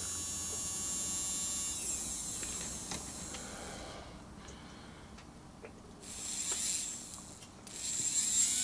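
Small electric motor from a Hornby Tornado model locomotive, fitted with its worm gear and flywheel and running off a controller. It gives a steady whine that winds down about two seconds in, then a few light clicks, and near the end it whines up again as it speeds up.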